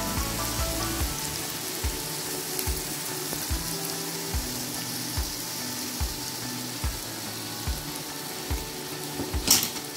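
Marinated chicken pieces and onions sizzling in hot oil in a nonstick frying pan: a steady hiss with small pops every so often, and a sudden louder noise near the end.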